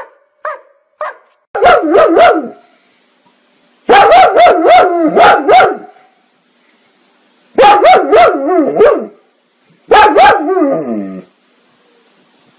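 German Shepherd barking: a few short single barks in the first second, then four loud bursts of quick barks in a row, their pitch wavering up and down, with pauses between them.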